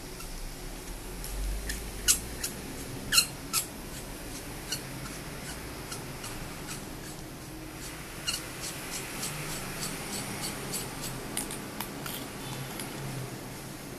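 Small metal flashlight parts being handled and screwed together: a few sharp clicks and taps in the first few seconds, then a run of lighter ticks and scrapes near the end.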